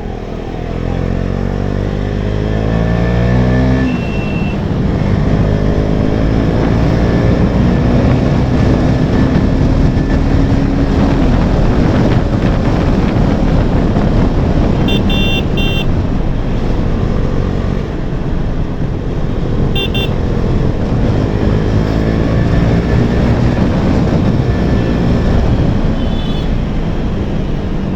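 KTM Duke 250's single-cylinder engine through an aftermarket Akrapovič exhaust, ridden on the road with a deep, bassy note. It revs up in the first few seconds, drops as a gear changes, then pulls steadily. Short vehicle-horn beeps sound about halfway through and again a few seconds later.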